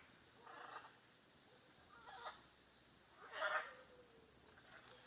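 Macaws calling: several short, harsh squawks, the loudest about three and a half seconds in, over a faint steady high whine.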